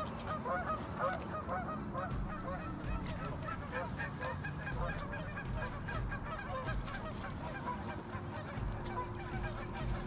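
A flock of Canada geese honking: many short calls overlapping, crowded at first and thinning out to fewer, fainter honks after about two seconds.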